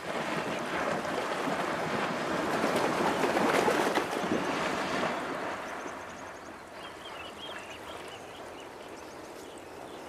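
Water splashing and churning as hippos push through the river, loudest for the first five seconds and then settling to a quieter wash.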